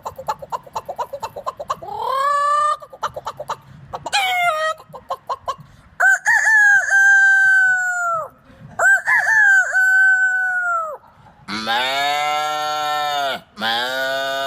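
A man imitating a chicken with his voice: rapid clucking, short rising squawks, then two long crowing calls. Near the end come two lower, drawn-out calls.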